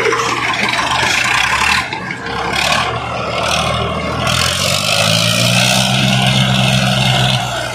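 Swaraj tractor diesel engines straining at full load in a tug-of-war pull, with black exhaust smoke showing the heavy load. The engine note climbs about four seconds in and holds high, with a harsh hiss over it, then both drop away near the end.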